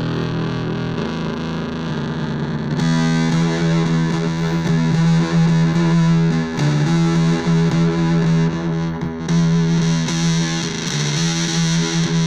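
Electric guitar through a Big Muff-style fuzz pedal: thick, sustained fuzz notes held and re-struck. The tone turns brighter and louder about three seconds in, and gains more treble near nine seconds.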